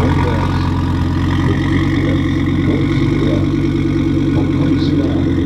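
Tuned VW Golf 7R fitted with an Audi RS3 2.5-litre turbocharged five-cylinder engine, idling steadily at the start line through its quad-tip exhaust.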